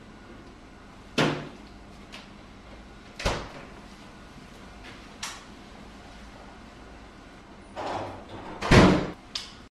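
A series of sharp knocks and clunks, about six, spaced a second or two apart, with a heavier double clunk near the end the loudest.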